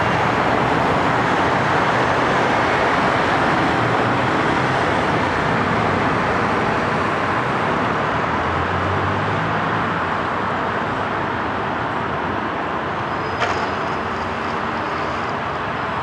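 Steady city street traffic heard from above: cars, buses and trams running past, with a low engine hum. A single sharp click about thirteen seconds in, followed briefly by a faint high tone.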